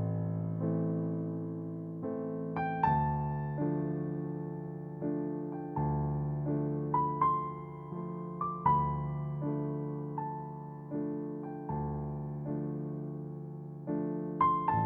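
Background music: slow, gentle piano playing sustained chords with a soft melody on top.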